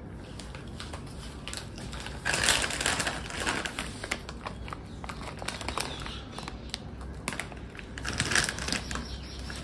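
Potato chips and their foil snack packet crinkling and crackling as they are handled and eaten: a run of small irregular crackles, louder about two and a half seconds in and again near the end.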